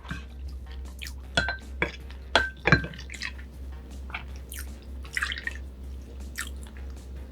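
Close-miked eating sounds: wet mouth clicks and smacking, with a few sharp clinks against a glass or dish, three of them ringing briefly.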